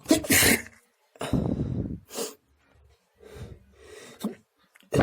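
A person sneezing: a sharp, loud sneeze at the start, then a second loud burst with some voice in it just over a second later, followed by softer short breathy sounds.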